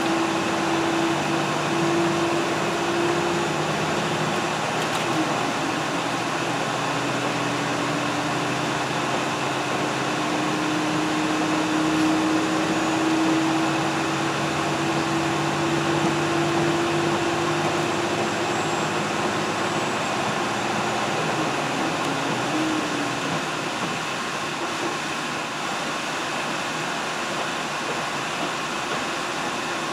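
Diesel train running along the line, heard from inside the car: a steady rumble of wheels and running gear under a constant hum, with a held whine that drops in pitch about five seconds in and stops after about eighteen seconds.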